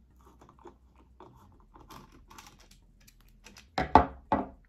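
Small metallic clicks and scrapes of a hand-held 11mm socket turning the hex nut off a clock movement's spindle, followed near the end by three louder knocks in quick succession.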